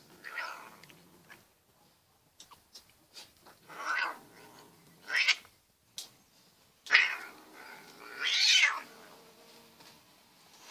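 Domestic cat giving about five loud, harsh yowls, spaced a second or more apart, while play-fighting with a puppy that is on top of it.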